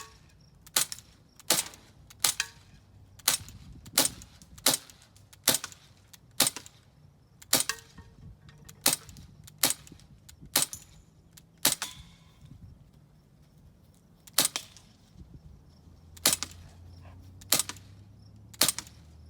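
Crosman Mako CO2 blowback BB pistol firing shot after shot, about seventeen sharp cracks, mostly under a second apart, with a pause of nearly three seconds a little past the middle.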